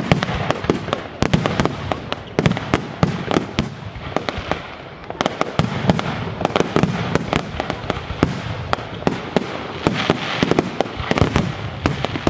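Aerial firework shells bursting in quick succession, a dense run of sharp bangs and pops with a short lull about four to five seconds in.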